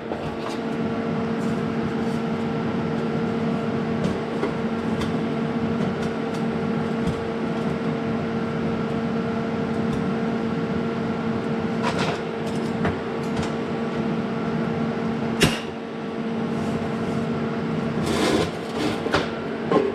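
Steady mechanical hum with a constant pitch, with a few sharp clicks; the loudest click comes about 15 seconds in.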